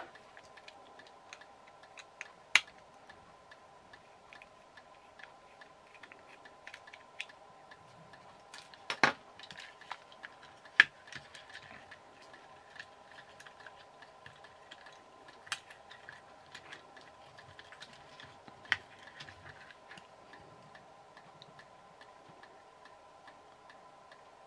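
Light clicks and ticks of a plastic toy-car chassis and its small circuit board being handled and worked loose by hand, with a few sharper clicks, over a faint steady hum.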